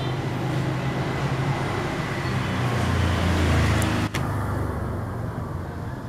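Road traffic noise: a steady low rumble of passing vehicles, growing louder about three seconds in as one passes close.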